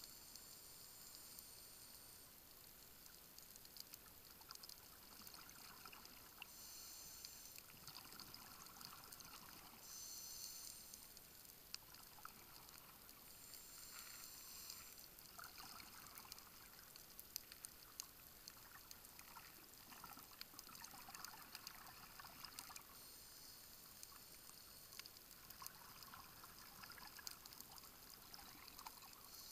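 Faint underwater sound heard through a dive camera's housing: bursts of scuba divers' exhaled bubbles, each a second or two long, every few seconds, with scattered faint clicks.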